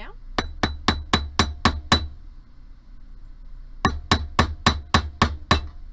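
Rawhide mallet pounding a silver wire filigree pendant flat on a steel bench block to take out its twist: two quick runs of seven or eight blows, about four a second, with a pause of nearly two seconds between them. Each blow has a faint ring.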